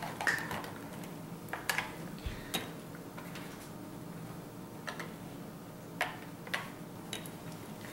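Light, irregular plastic clicks and taps from a toy kitchen's microwave being opened and handled, about seven in all.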